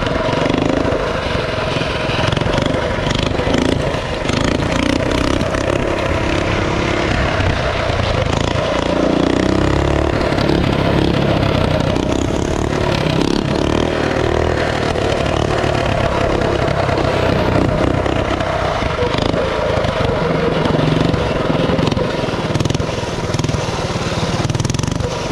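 A mini bike's 212cc single-cylinder engine with an aftermarket header pipe, running steadily as the bike is ridden.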